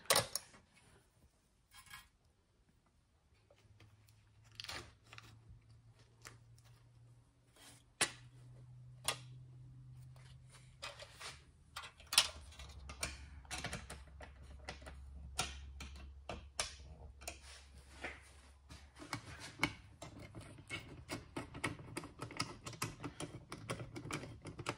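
Small metallic clicks and light rattles of gauge brackets, nuts and a screwdriver against an aluminum instrument panel as the gauges are fitted and secured. The clicks come scattered at first and grow more frequent over the last few seconds.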